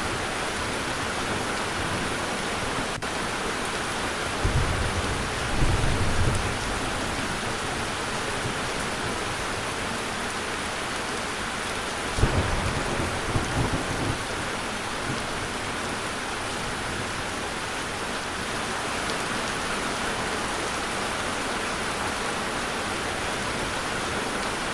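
Steady rain pouring down, with low rolls of thunder rumbling twice: about four seconds in and again about twelve seconds in.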